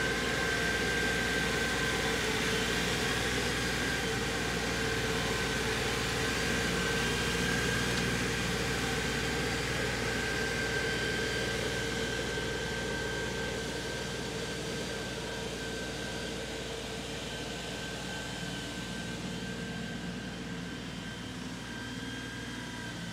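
LS XR3135 compact tractor's diesel engine running steadily while it works with a loader bucket of topsoil, growing gradually fainter over the second half as the tractor moves away.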